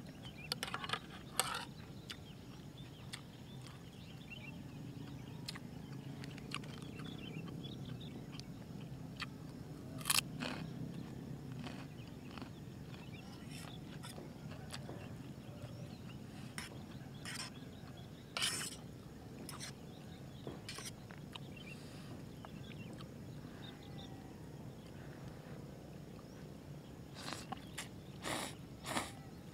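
A person eating noodles from a metal camping pot: a metal fork-spoon clicks and scrapes against the pot now and then, with chewing between, over a steady low background noise. The louder clicks come about a second in, around ten seconds, around eighteen seconds, and several together near the end.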